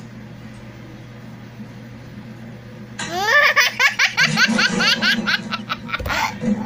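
A young child laughing hard: after about three seconds of only a steady low hum, a burst of high squealing giggles starts, rising in pitch and then breaking into rapid repeated laugh pulses for about three seconds.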